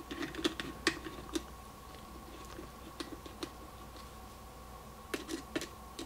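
Faint, scattered clicks and taps of a screwdriver being handled and set into a small screw in a glass coffee carafe's plastic handle, with a short cluster of clicks near the end.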